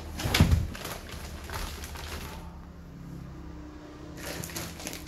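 Plastic bags of loose tea rustling and crinkling as a bag is set down into a styrofoam box. The rustling is loudest in the first second and comes again briefly near the end.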